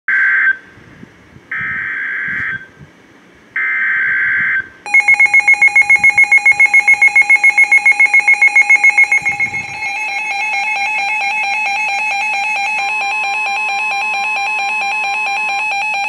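NOAA Weather Radio Specific Area Message Encoding (SAME) header: three short bursts of digital data tones about a second apart. Then weather alert radios sound their alarm, first a loud rapid beeping of about six pulses a second for about four seconds, then a steady multi-tone alarm tone.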